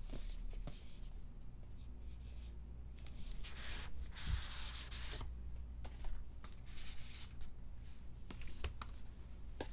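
Paper and cardboard rustling as a K-pop album's packaging and photobook are handled and opened, with small clicks and taps; the longest rustle comes about three to five seconds in.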